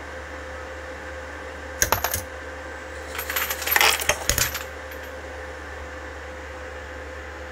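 Brass rifle cases clinking and rattling as a Dillon case feeder and an automatic case annealer cycle: a few sharp clinks about two seconds in, then a longer clatter of cases a second later. The machine's cooling fan hums steadily underneath.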